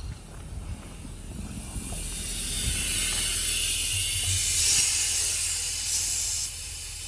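Compressed air from the truck's engine-driven VMAC underhood compressor hissing out. It builds over a second or so, stays loud for about four seconds, then drops off sharply near the end. A diesel engine idles underneath.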